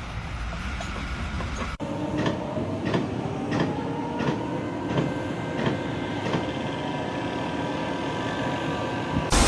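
A vehicle or machine running, with a steady whine, one tone slowly rising, and regular clicks about every two-thirds of a second. The sound changes abruptly about two seconds in.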